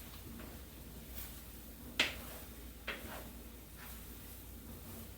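A cooking utensil knocking and scraping against a skillet as fried rice is stirred: a sharp knock about two seconds in, a smaller one about a second later, and a few faint ticks.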